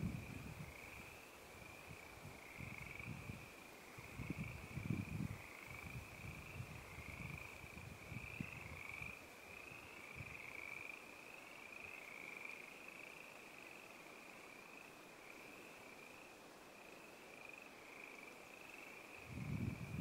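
A faint, continuous high-pitched pulsing trill from calling animals, steady throughout. Low rumbles of wind on the microphone come at the start, again around four to five seconds in, and at the very end.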